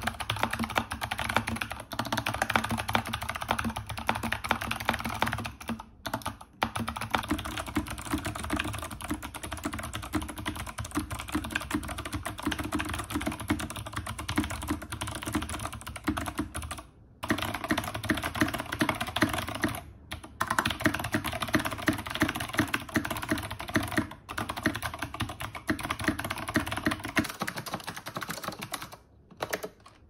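Fast typing on clicky mechanical keyboards, in short clips cut back to back with several brief breaks between them. First Zeal Clickiez switches in clicky mode, in a polycarbonate NK65 EE case with an aluminium plate and MT3 PBT keycaps. Then Kailh BOX Jade clicky switches in an ABS BBOX60 case with an FR4 plate and the same keycaps.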